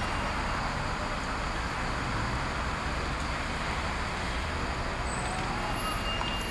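City bus idling at a stop: a steady engine-and-traffic noise, with a faint high tone briefly near the end.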